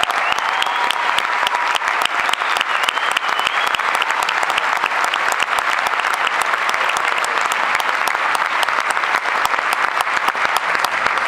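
A large theatre audience applauding: dense, steady clapping, with a few sliding whistles in the first three seconds.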